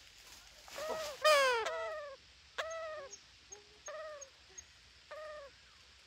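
Parrot calling: a series of four or five short, harsh calls, each arching and then dropping in pitch. The loudest comes about a second in.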